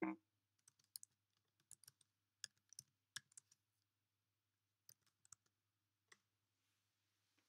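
Faint computer keyboard keys clicking in short, irregular bursts as a command is typed, with the last keystrokes about six seconds in.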